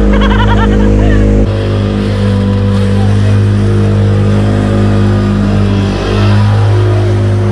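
Outboard motor of a mini speedboat running hard at speed, a steady engine note that shifts about a second and a half in and again near the end. Excited voices are heard in the first second.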